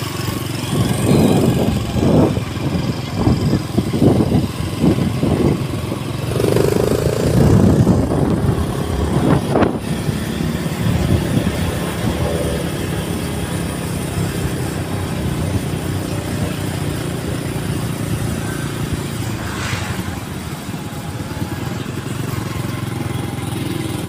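Motorcycle riding through city traffic: its engine running under steady wind and road noise, with uneven surges during the first ten seconds or so.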